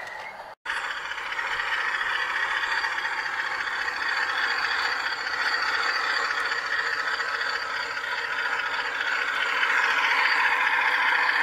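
Large-scale garden-railway model railcar running along the track: a steady whirr of its electric motor and gears with wheels rolling on the rails. It grows louder near the end as the railcar comes close.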